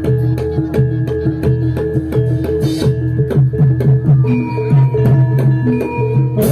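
Javanese gamelan accompanying a jathilan dance: a fast, repeating pattern of pitched metallophone notes over regular kendang drum strokes.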